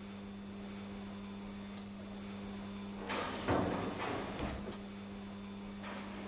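Steady electrical hum with a high faint whine, and about three seconds in a short burst of rustling from the practitioner's cotton uniform and his hands on the sheathed sword, loudest at one brief knock.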